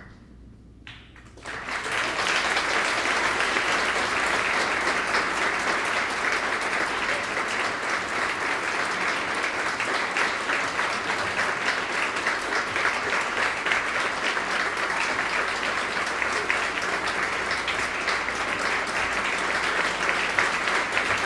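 Audience applauding, breaking out about a second and a half in and then holding steady.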